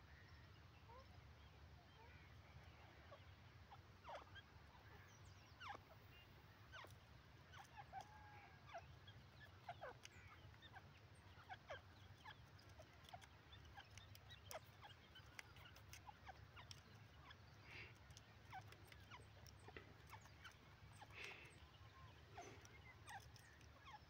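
Near silence: a low steady rumble with scattered faint, short bird chirps and clucks through it.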